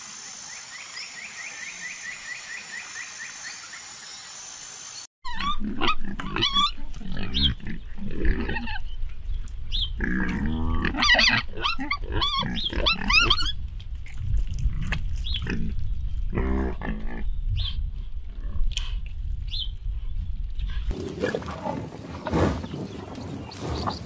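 Wild boar calling repeatedly: a long run of loud, high squeals that waver and glide in pitch, mixed with lower calls. It starts abruptly about five seconds in, after a quieter stretch with faint rhythmic chirping, and gives way near the end to a noisier patch of short knocks.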